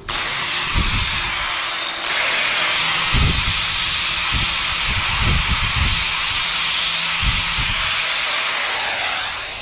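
Electric angle grinder running and grinding down the steel end of a RIDGID drain-cleaning cable, taking off the protruding part so the coupling fits. It starts abruptly, dips briefly about two seconds in and runs down near the end, with a few low knocks along the way.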